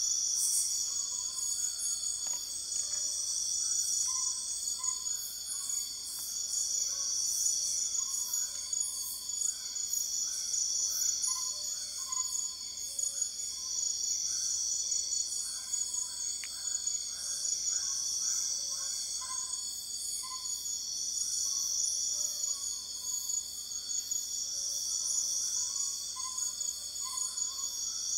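Nighttime jungle insect chorus: crickets and other insects trilling in continuous high-pitched layers, one of them swelling and fading about every three and a half seconds. Fainter short calls repeat lower in pitch underneath.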